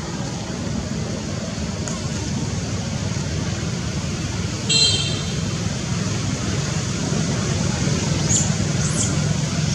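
Steady low background rumble of outdoor ambience, with a short high-pitched squeak about five seconds in and two faint high chirps near the end.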